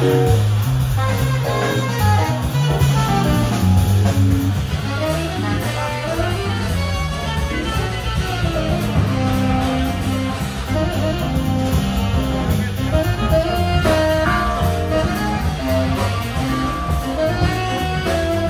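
Live band playing a blues number, with saxophone, guitar, bass and drums.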